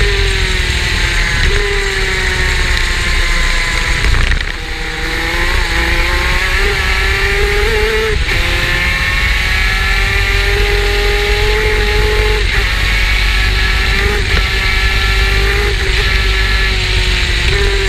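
Superkart engine running hard at high revs, its note over a steady noise of wind and tyres. About four seconds in the pitch and loudness sag as the throttle comes off, then the note climbs back, with a few brief dips and blips after.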